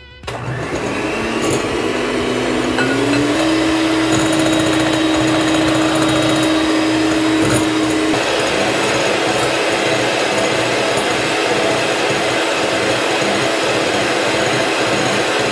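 Electric hand mixer running, its twin wire beaters whipping egg whites and sugar toward stiff peaks. The motor's hum steps up in pitch about three seconds in and then holds steady.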